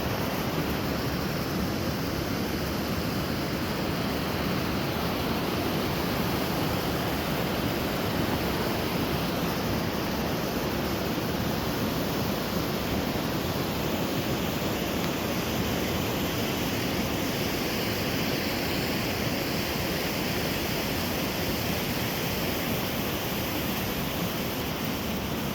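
Rushing river water: a steady, unbroken roar of fast-flowing water.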